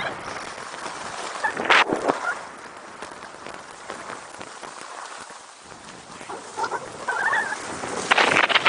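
Skis hissing and scraping over groomed snow on a downhill run, with wind rushing over the camera's microphone. The noise swells sharply near the end as speed picks up.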